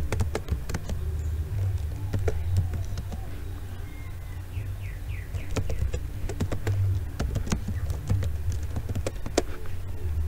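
Computer keyboard keys tapped at an irregular pace as a command is typed, over a steady low hum. A brief run of high chirps comes about halfway through.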